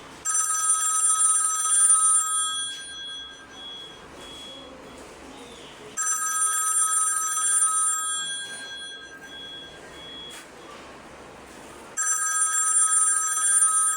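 A bell-like ringing tone made of several high pitches, starting suddenly three times about six seconds apart and dying away each time.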